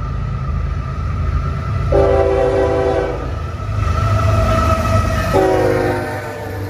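Freight train's diesel locomotive blowing its multi-chime air horn in repeated blasts as it approaches and passes, over the low rumble of its engines. The last blast, about five seconds in, dips slightly in pitch as the locomotive goes by.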